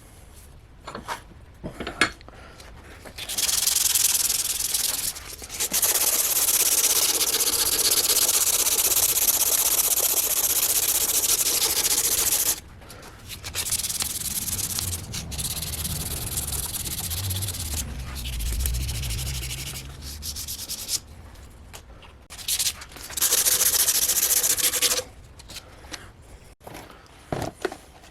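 Abrasive sanding on the cleaver restoration work, running in long steady stretches several seconds each with short pauses and a few clicks between.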